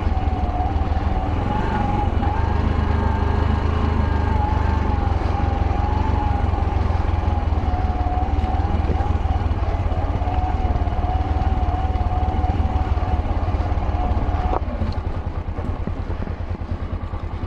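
Small single-cylinder motorcycle engine running steadily under throttle, with a steady, slightly wavering whine above it. About fourteen and a half seconds in the throttle is eased and the engine runs quieter.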